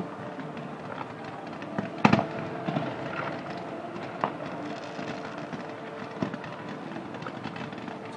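Fireworks going off: scattered bangs and cracks, the loudest a single bang about two seconds in, over a steady background noise.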